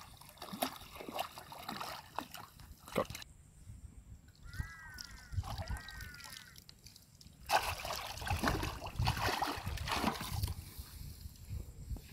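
Shallow muddy water splashing and sloshing as it is stirred by hand and scooped with a woven bamboo basket while wading. Near the middle the splashing drops away and an animal calls twice, briefly.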